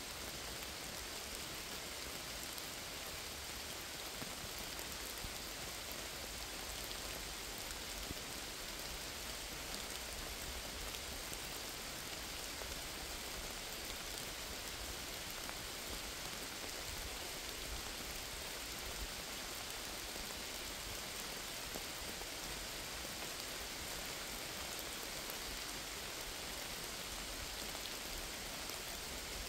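Steady rain falling on forest foliage: an even hiss of drops with an occasional louder single drop.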